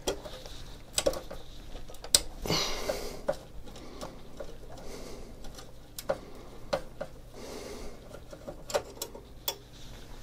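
Screwdriver working at a screw on the earth strap of a Macintosh Plus's metal chassis: scattered small metallic clicks and ticks, with a brief scrape about two and a half seconds in.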